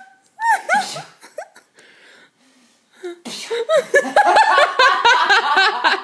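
A few short, high squeaks that rise and fall in pitch, then from about three seconds in a woman laughing hard, with high, wavering squeaky calls mixed into the laughter.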